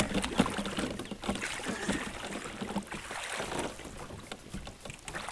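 Canoe sitting in a river with someone wading at its bow: water sloshing and splashing around the hull, with scattered knocks and clatter against the canoe.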